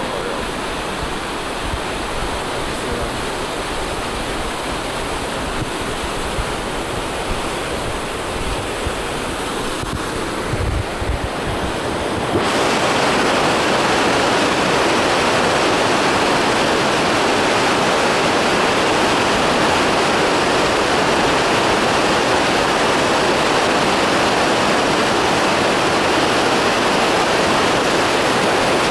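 River rapids rushing below a suspension bridge, with wind buffeting the microphone in the first part. About twelve seconds in, the sound cuts to a louder, steady rush of white water.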